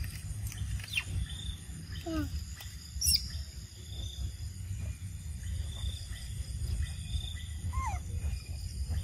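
Macaques giving a few short calls that slide in pitch: a falling squeak about a second in, a lower falling coo near two seconds, a high squeal around three seconds and another squeak near the end. Under them runs a steady low rumble with faint steady high tones.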